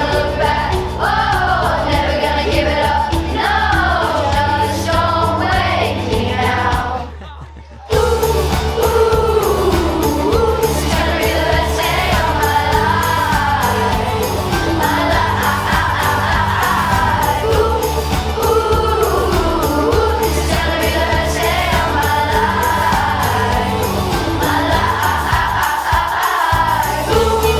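Music with singing over a steady backing track. About seven seconds in it fades down, and a second later another passage starts abruptly.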